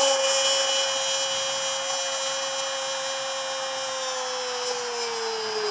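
A Brazilian football commentator's long goal cry, "Goool!", held as one steady high note for about five seconds that slowly sinks in pitch toward the end.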